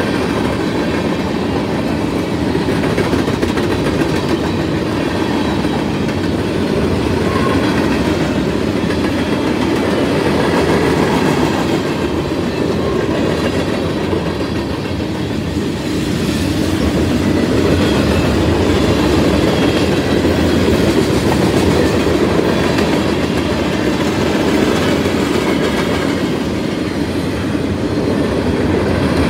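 Freight train's covered hopper and tank cars rolling past at speed: a steady, loud rolling noise of steel wheels on the rails.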